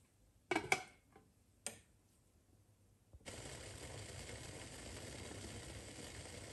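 Two sharp metallic clanks and a lighter knock from a stainless steel pot, the loudest sounds. About three seconds in, a steady hiss with a low rumble starts suddenly: the water with dried quince slices heating toward the boil in the lidded pot.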